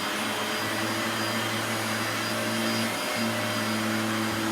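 Shark Navigator Lift-Away upright vacuum cleaner running steadily, its motor giving a loud, even rush of air. A low hum joins it about half a second in and drops out briefly about three seconds in.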